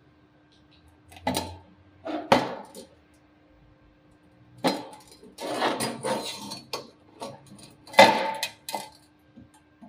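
A length of rectangular steel tube handled on a steel workbench: a series of metal clanks and knocks as it is picked up, turned over and set down, with some scraping and rattling between. The loudest knock comes about eight seconds in, under a faint steady hum.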